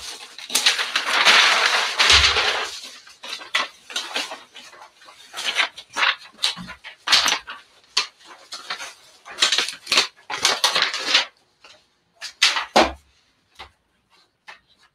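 Paper and fabric being handled at a heat press: a longer rustle in the first two seconds, then many short rustles, scrapes and clicks, thinning out near the end, as the transfer paper and tape come off the sublimated towel.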